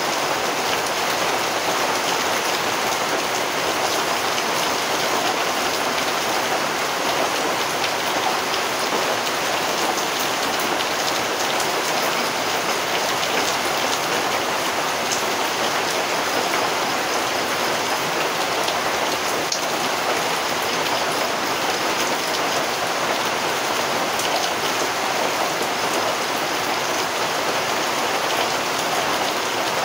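Rain falling steadily: an even hiss of many drops that holds the same level throughout.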